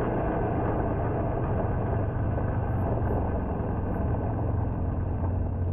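Polaris General side-by-side driving along a gravel road: a steady rumble of engine and tyres on loose gravel, mixed with wind rushing over the low-mounted camera's microphone.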